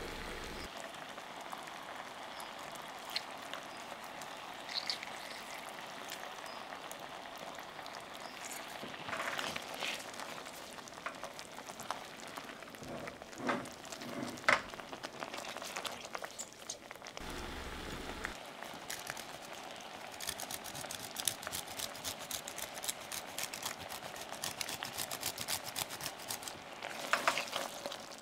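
Cream sauce with sliced mushrooms simmering in a stainless steel sauté pan, bubbling with small pops and crackles while a spatula stirs it. The popping becomes dense over the last several seconds.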